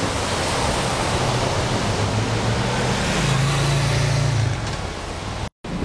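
Street traffic at a city intersection: a steady rush of cars, with one vehicle's engine hum growing louder a little past the middle and fading again. The sound cuts off suddenly near the end.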